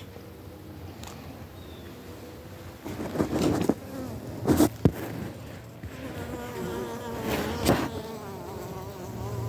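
Honeybees buzzing inside a hive, a wavering hum that comes up in the second half. The bees are clustered on dry sugar fed to them in winter. A few knocks sound around three to five seconds in and again near the end.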